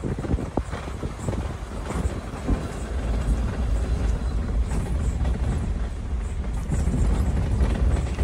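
Suzuki Jimny rolling slowly down a rough lane, heard from inside the cabin: a steady, low engine and tyre rumble with a few small knocks.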